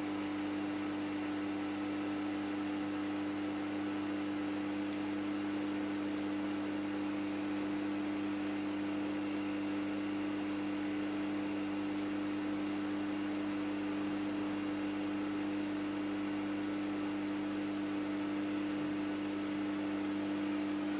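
Steady electrical hum with a low hiss from a running reef aquarium's equipment, its circulation pumps and protein skimmer.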